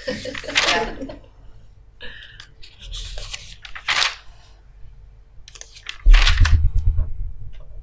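Rustling and crunching noises close to the microphone, then a loud thump with a low rumble about six seconds in.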